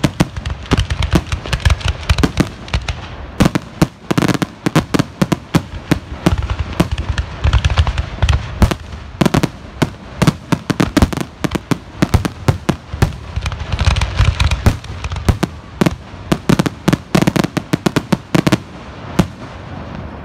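Fireworks finale: aerial shells bursting in rapid, overlapping succession, several sharp bangs a second over a rolling low rumble. The barrage thins out near the end.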